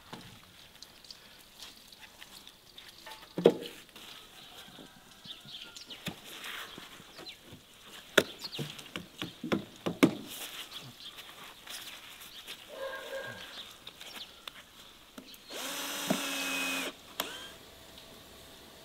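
Wooden planks being handled and knocked against each other, with several sharp knocks, then a cordless drill running steadily for about a second and a half near the end.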